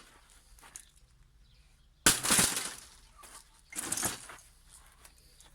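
A heavy block is dropped flat onto an opened TV's LED backlight panel and lands with a sudden crash and a clatter of breaking pieces about two seconds in. A second, weaker crash comes near four seconds in.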